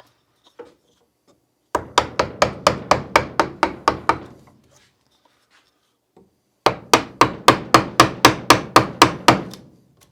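A carving gouge being tapped into wood with a mallet, in two runs of quick, even strikes, about six a second, with a pause of a couple of seconds between them.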